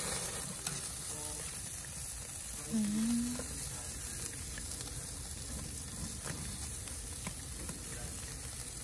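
Whole mackerel scad sizzling over a charcoal grill: a steady hiss with small crackles as the fish cook over the hot coals. A brief low hum comes about three seconds in.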